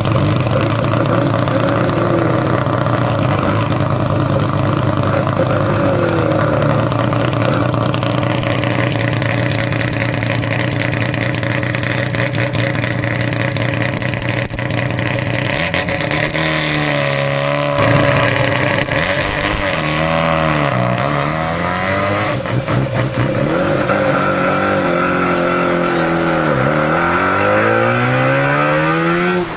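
Mazda 13B peripheral-port rotary engine running at low revs for the first half. Past the middle the revs fall and rise several times, then climb steadily near the end as the car accelerates.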